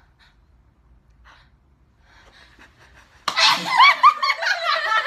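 A person sneezes suddenly about three seconds in, followed at once by laughter.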